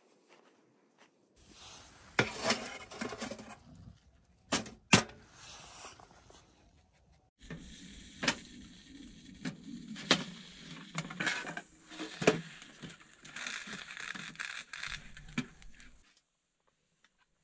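A few sharp knocks, then a knife cutting a piece of raw meat in a metal pan, the blade clicking against the pan many times.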